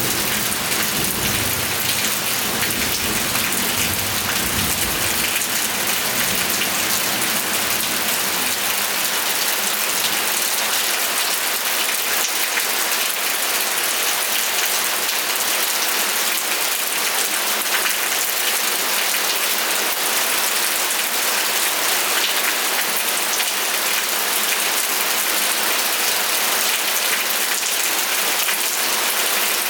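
Steady heavy rain falling, an even hiss of drops on a surface. A low rumble underneath fades out over the first several seconds.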